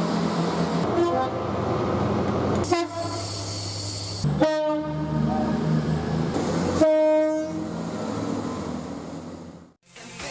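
British train horn sounding in three short blasts about two seconds apart, over the steady running of the train. The sound fades out near the end.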